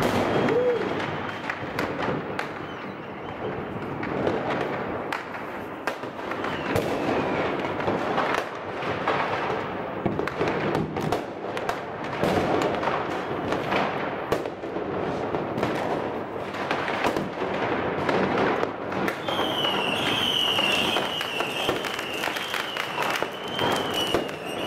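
New Year fireworks and firecrackers going off across the town: a steady run of bangs and crackles, some near, most farther off. Near the end a high wavering whistle joins in and keeps going.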